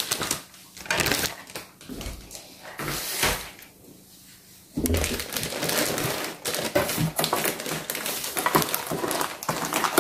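Plastic wrapping crinkling and cardboard scraping and knocking as plastic-bagged toy house parts are handled inside a cardboard box. A few scattered rustles at first, then busier, steady rustling and clicking from about five seconds in.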